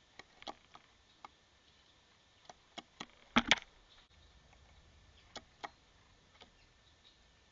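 Scattered light clicks and taps at irregular intervals, with two louder knocks in quick succession about three and a half seconds in.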